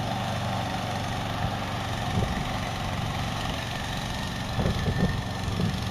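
Gas engine of a Hybrid Goat 22T remote-control slope mower running steadily.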